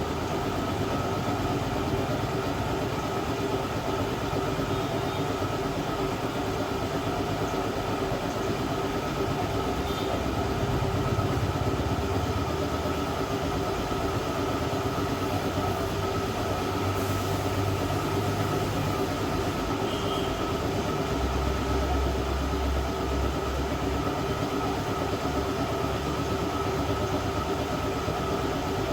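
Steady mechanical drone of a hot-air plastic welder's blower running, a constant whine over a hum that keeps an even level throughout.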